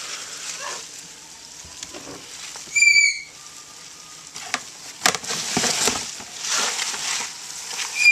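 Cardboard egg flats rustling and scraping as a hand shifts them in a plastic tub of dubia roaches, with a few light clicks. A bird gives two short, high chirps, about 3 s in and again at the end, louder than the rustling.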